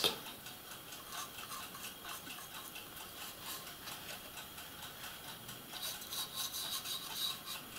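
Fine paintbrush scratching and dabbing on a small plastic model part, weathering it with rust colour; faint at first, then busier and scratchier from about six seconds in.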